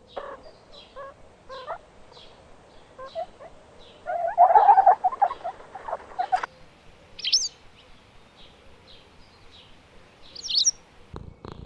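Birds chirping and calling: short high chirps repeat about twice a second, with a louder chattering call about four seconds in and two shrill rising calls later on.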